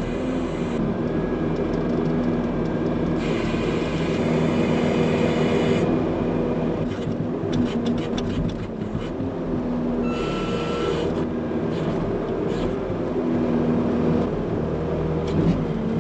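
A vehicle engine running steadily, with some light rattling about halfway through.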